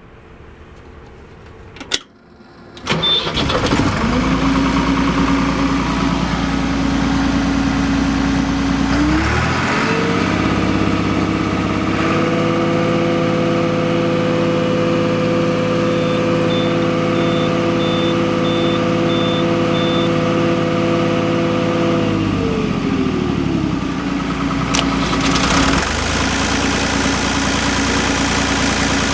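New Holland LX885 skid steer's diesel engine starting about three seconds in after a click, then idling. About ten seconds in it is revved up to a higher steady speed, held for about twelve seconds, and brought back down to idle.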